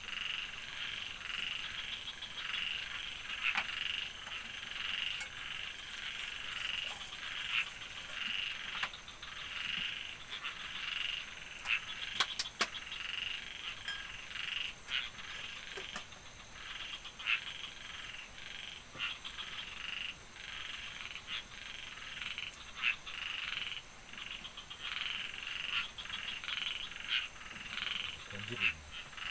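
A chorus of frogs calling in quick repeated notes, with a faint steady high tone behind.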